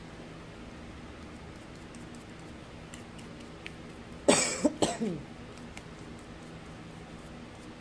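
Two quick coughs about half a second apart, over a faint steady hum.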